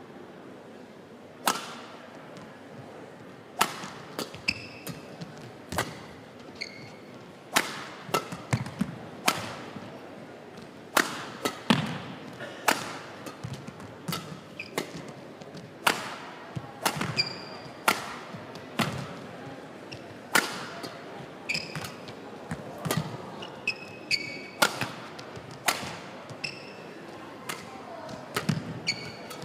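A long badminton rally: rackets strike the shuttlecock about once a second, with short squeaks of court shoes between the hits.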